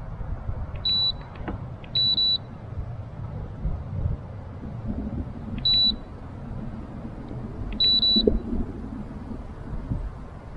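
Four short, high electronic beeps from the boat's electronics, each coming right after a click like a button press; the second and fourth are a little longer. A steady low rumble runs underneath.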